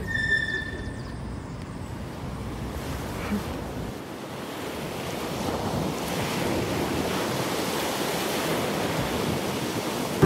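Ocean surf washing up a sandy beach, with wind buffeting the microphone. A short high steady tone sounds in the first second.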